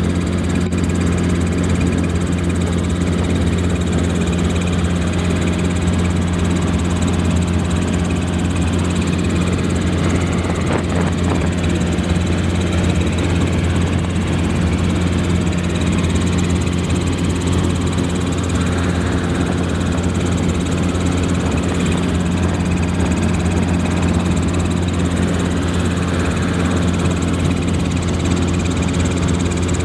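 Helicopter in flight, heard from inside the cabin: a loud, steady engine and rotor drone with a low hum.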